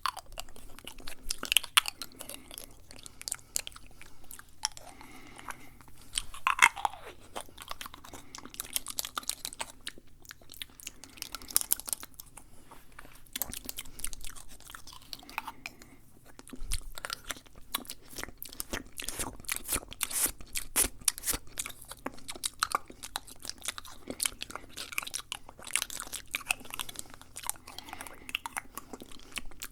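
Fast, wet mouth sounds close to the microphone: a dense, uneven run of clicks, smacks and tongue sounds, with a few short falling slurps.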